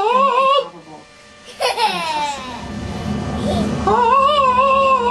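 A toddler's high voice in drawn-out, wavering singsong vocalizing, breaking off about a second in, then a short falling squeal with laughter, then another long wavering note near the end.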